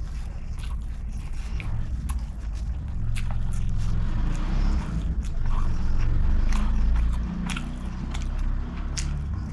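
Close-miked chewing of a mouthful of rice, with sharp wet mouth clicks, and fingers scraping and gathering rice on the sheet covering the table. A heavy low rumble swells up through the middle and eases off toward the end.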